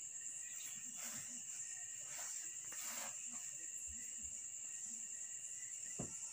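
Steady high-pitched trill of night insects, with faint rustling about one and three seconds in and a single soft knock near the end.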